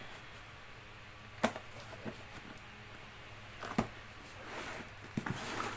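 A cardboard box being torn open by hand, without a cutter: a few sharp cracks, the loudest about a second and a half in and again near four seconds, then rustling and tearing of cardboard toward the end.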